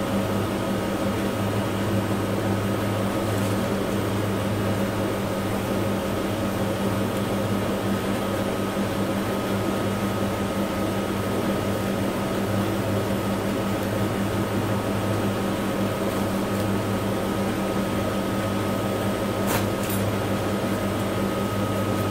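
Steady low machine hum with a thin, higher steady tone above it, unchanging in level; a single short click near the end.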